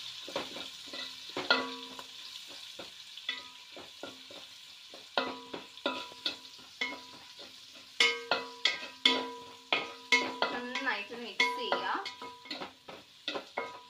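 A metal spoon stirring frying vegetables in a metal pot: repeated taps and scrapes against the pot, each tap ringing briefly, over a light sizzle. About two-thirds of the way in, the taps come faster and louder, several a second.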